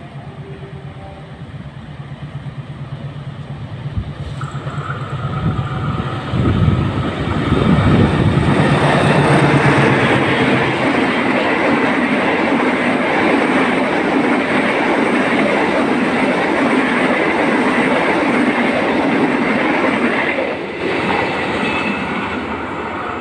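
Diesel-electric locomotive hauling a rake of stainless steel passenger coaches, approaching and passing at speed. The engine's drone grows over the first six seconds and peaks as the locomotive goes by. Then the coach wheels rumble on the rails for about twelve seconds, dropping away near the end as the last coach passes.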